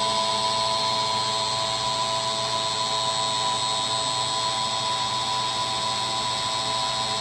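CNC engraving machine's spindle motor spinning at speed with a steady high-pitched whine: several constant tones over a hiss.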